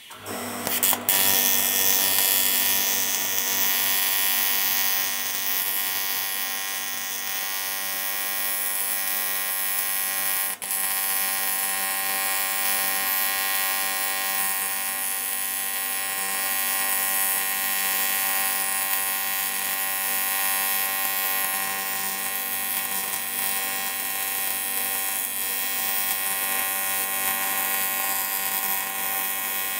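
AC TIG welding arc on an aluminium crankcase, a steady buzzing hum as weld is built up. The arc drops out for a moment about ten seconds in, then carries on.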